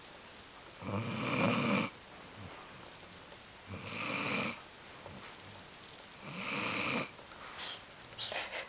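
A sleeping dog snoring: three long snores, roughly two and a half seconds apart, followed by a few short snuffles near the end.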